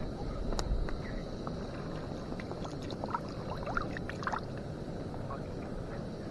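Steady outdoor rushing noise, with a sharp click about half a second in and a few short, faint chirps around the middle.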